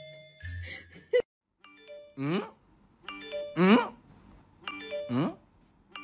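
Playful background music with chiming, tinkly notes, then a loud sound falling steeply in pitch, repeated four times about a second and a half apart.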